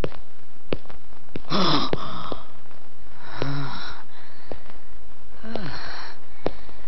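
Men groaning and gasping in pain: three breathy cries that fall in pitch, spaced a couple of seconds apart, with a few sharp clicks or knocks between them.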